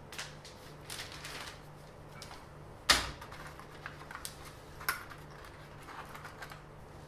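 Handling noises: scattered rustles and light clicks, with a sharp knock about three seconds in and a smaller one about two seconds later.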